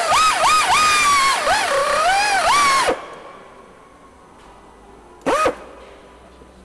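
Pneumatic air nibbler whining as it cuts aluminium sheet, its pitch dipping and rising again and again as the punch bites into the metal. It stops about three seconds in, then gives one short burst near the end.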